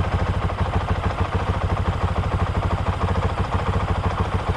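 Honda CRF450RL's single-cylinder four-stroke engine idling with a steady, even, rapid beat.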